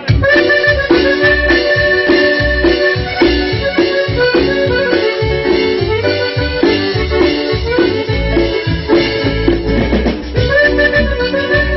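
Live cumbia band striking up a song with an instrumental passage: an accordion-like lead melody over a pulsing bass and steady percussion.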